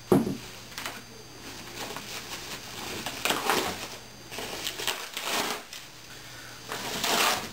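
A thump as a wrapped picture frame is laid on a tabletop, then thin plastic foam wrapping rustling and crinkling in a few short bursts as it is pulled off the frame.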